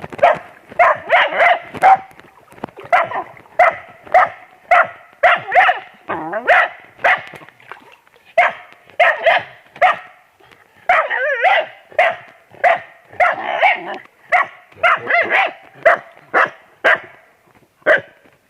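Dog barking over and over, about one to two sharp barks a second, with a short break about eight seconds in and again near the end.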